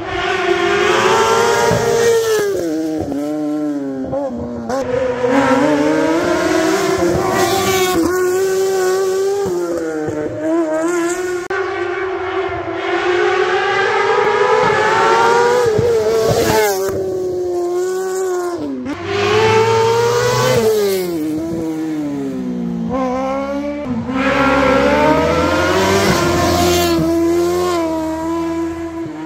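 Hillclimb competition cars being driven hard up the road, several in turn. Each engine revs up through the gears, the pitch climbing and then dropping sharply at every shift, and grows louder as the car comes past.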